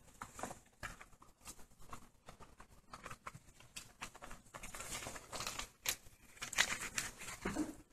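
Faint rustling and crinkling of thin Bible pages being leafed through to find a passage, in small irregular strokes that grow busier and louder in the second half.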